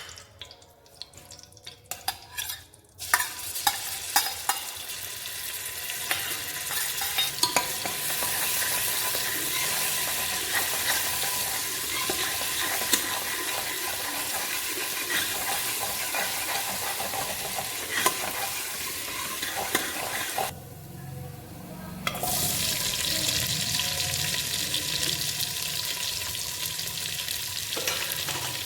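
Food frying in ghee in a pan, sizzling steadily while a spoon clinks and scrapes against the pan as it is stirred. A few utensil clinks come first, and the sizzle starts about three seconds in. It breaks off briefly about twenty seconds in, then carries on.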